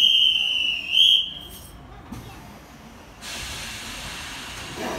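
A high whistle blown twice, one long blast and one short, then about three seconds in a steady hiss sets in as the Sagano Romantic Train starts to pull away from the platform.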